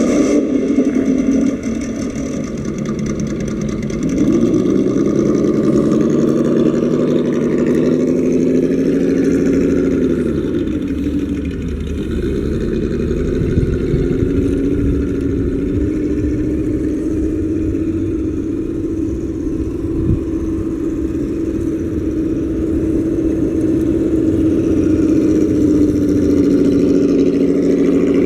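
Simulated V8 engine sound from a 1955 Ford scale model's sound module, revving. It climbs in pitch about four seconds in, falls back near twelve seconds, then rises again and holds high before dropping off at the very end.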